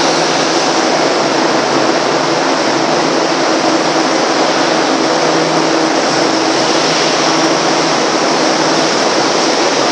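Steady, loud machinery roar with a constant low hum under it, aboard a car-carrier ship during unloading; it does not rise or fall.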